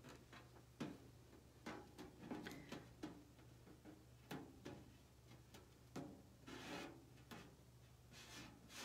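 Faint scattered clicks and short crinkling rustles of a small adhesive stencil being handled and pressed onto a tote by fingers, over a low steady hum.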